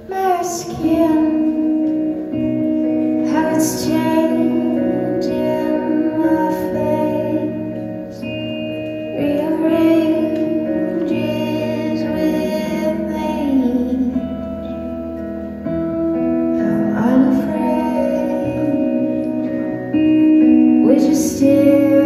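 Live music from a keyboard and guitar duo: sustained keyboard chords and guitar, with a woman singing.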